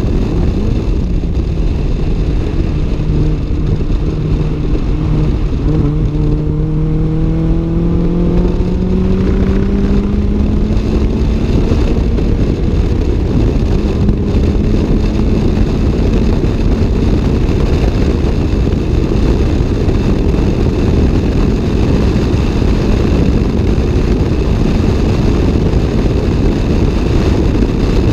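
Toyota AE86's 4A-GE twin-cam four-cylinder engine and exhaust at speed, heard from inside the cabin under heavy road and wind noise. The engine note climbs steadily from about five seconds in to about twelve, then holds level.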